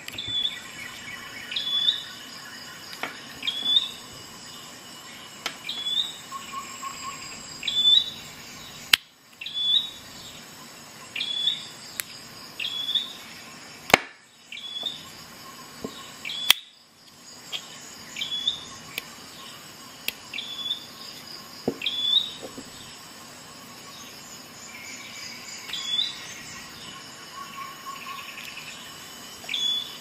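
A small animal chirping: short high chirps repeating evenly, about one every one and a half seconds. A few sharp clicks come in between as the pocket rescue tool is handled.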